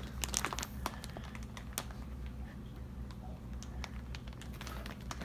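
A water-filled plastic fish shipping bag crinkling as it is handled and lifted from a foam-lined box, heard as a scatter of light clicks and taps, densest in the first second.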